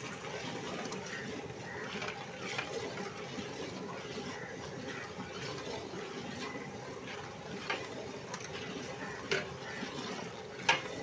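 Long metal ladle stirring thick mutton masala in a large aluminium cooking pot: a steady wet churning, with a few sharp clicks as the ladle knocks against the pot, the clearest near the end.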